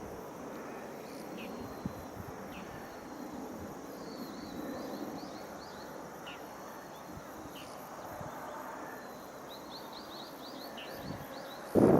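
Small birds calling over a soft outdoor background: short, falling high notes every second or so, with two quick runs of rapid notes. Just before the end, a sudden loud rush of noise cuts in.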